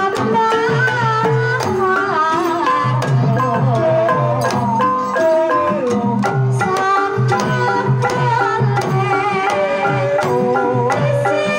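Banyumasan tayub gamelan music: a kendang drum played with the hands in a steady rhythm and a small knobbed gong struck with a padded beater, under a sinden's wavering, ornamented sung melody.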